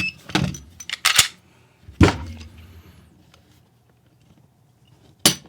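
Sharp metallic clicks of a Glock pistol's trigger action, fitted with a Taran Tactical Grand Master connector, being reset and dry-fired against a Lyman trigger gauge to measure its pull weight. There are a few scattered clicks, the loudest about two seconds in and another near the end.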